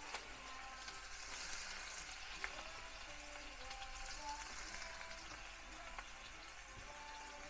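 Freshly chopped red onion sizzling in hot oil in a pan with mustard seeds, urad dal and curry leaves: a steady faint hiss with a few sharp pops.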